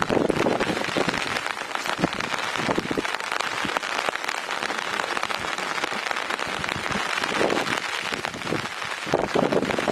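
Steady rain falling, a dense patter of many small drops, with a few heavier louder spells near the start and near the end.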